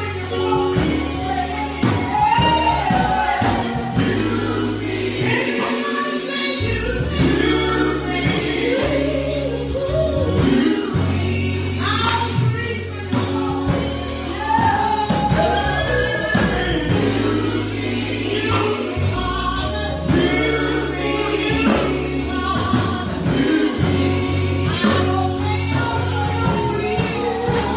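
Gospel choir singing with instrumental accompaniment: sustained bass notes under the voices and a steady drum beat.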